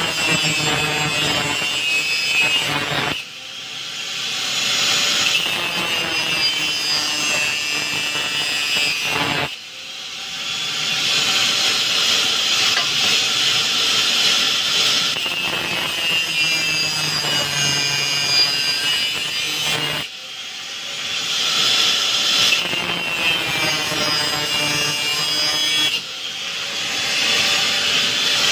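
Corded electric power tool working on the steel of a terrace grill, running under load with a harsh high-pitched grinding sound. It eases off briefly about four times and speeds back up each time.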